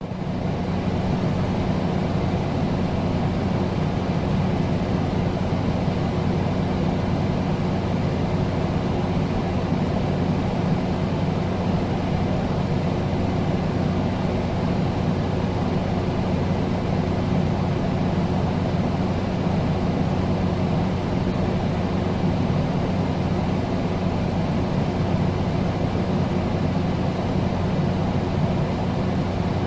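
Air conditioner running steadily: an even rush of blowing air with a low, constant hum underneath.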